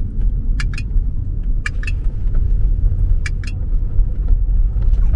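Steady low rumble of road and engine noise inside a moving car's cabin, with a few pairs of short sharp rattling clicks.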